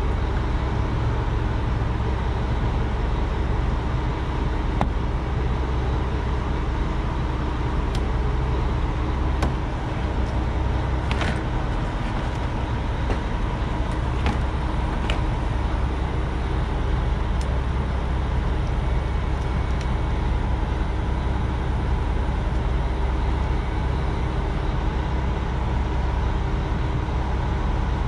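Steady low rumble of an idling truck engine, with a few faint clicks around the middle as a utility knife scores the plastic window screen.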